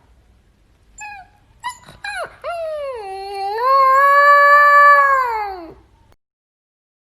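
Husky puppy howling: a few short yips, then one long howl that rises, holds and falls away at the end.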